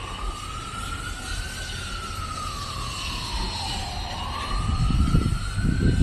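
Emergency vehicle siren wailing, its pitch rising, falling slowly and rising again. About two-thirds of the way in, a louder low rumble joins it.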